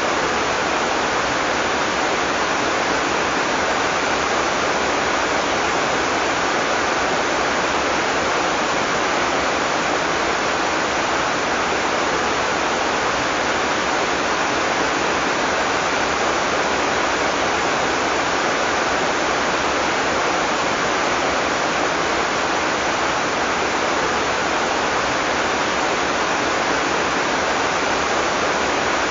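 Heavy tropical rain falling in a steady, dense hiss, with no thunder.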